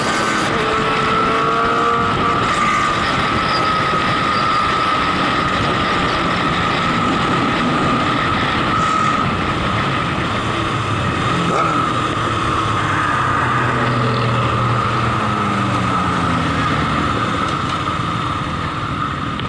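Wind rush and motorcycle engine noise from a camera riding on a moving motorcycle at road speed, with a steady high tone throughout. In the second half the engine's pitch rises and falls with the throttle.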